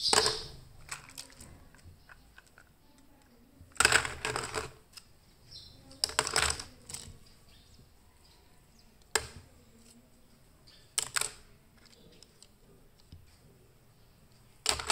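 Small plastic toy cars clattering and knocking against each other as they are picked out of a heap and set down, in about six short bursts a couple of seconds apart.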